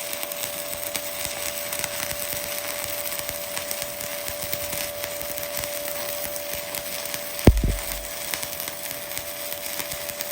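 Stick welding (SMAW) arc burning steadily as a vertical bead is run on steel plate: a continuous crackling with a steady hum underneath. A single sharp knock about seven and a half seconds in.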